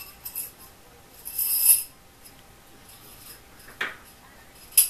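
Steel recoil spring of an Ithaca Mag-10 shotgun being compressed and worked onto its spring guide tube, metal rubbing on metal: a rasping scrape about a second and a half in, a shorter scrape near four seconds, and a sharp click near the end.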